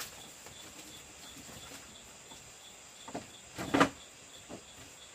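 Insects trilling steadily with a regular pulsing chirp, and a few short knocks about three to four seconds in, one much louder than the rest.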